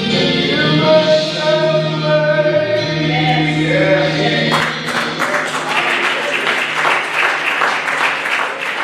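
Gospel choir singing the closing held phrase of a song over a sustained low accompaniment note; about halfway through, the congregation breaks into applause that continues.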